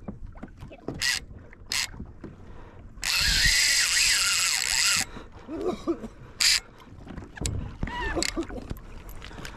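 Fishing reel drag running as a hooked fish takes line: one steady, rasping drag run lasting about two seconds, starting about three seconds in, with a few short clicks and knocks of the rod and reel around it.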